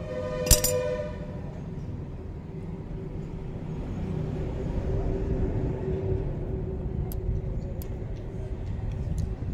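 Motorcycle oil dipstick cap broken loose with cutting pliers: a sharp click and a brief squeak about half a second in. A few faint clicks follow near the end as the cap is unscrewed by hand, over a steady low rumble.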